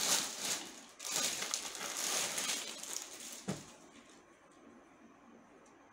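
Clear plastic garment bag crinkling and rustling as a folded suit is pulled out of it, with a single soft thump about three and a half seconds in.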